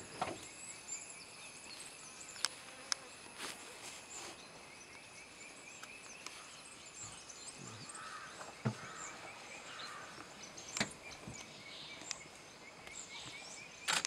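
Open-meadow ambience: a steady insect drone with small bird chirps, broken by a few short knocks and thuds, the loudest about two-thirds of the way through.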